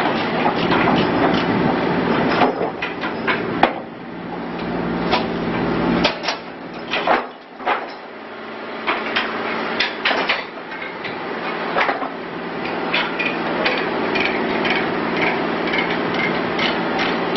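Bobcat E35i mini excavator working: its engine running under frequent sharp metallic clanks and knocks. The engine note drops away about six seconds in, then builds back up.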